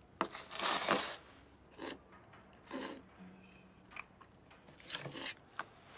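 Jajangmyeon noodles slurped up with chopsticks: one long slurp about half a second in, then several shorter slurps.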